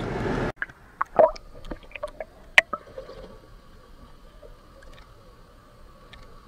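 Underwater audio from a camera submerged in lake water: a cluster of sharp clicks and knocks for about two seconds, then a faint steady hum with thin high tones. A brief stretch of car cabin noise ends abruptly about half a second in.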